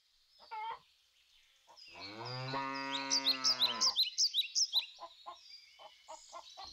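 A cow mooing once, a long low call of about two seconds starting about two seconds in, while small birds chirp over it again and again.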